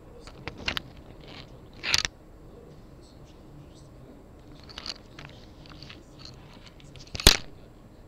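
Hands handling objects close to the microphone: scattered rustling and clicks, a louder crackle about two seconds in, and a sharp click near the end.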